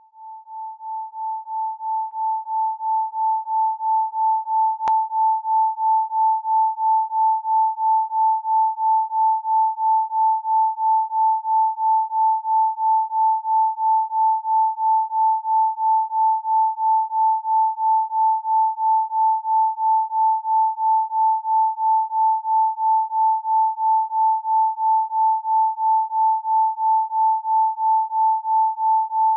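Isochronic tone: a single pure tone pulsing on and off at an even rate, about two to three pulses a second. It fades in over the first few seconds and then holds steady.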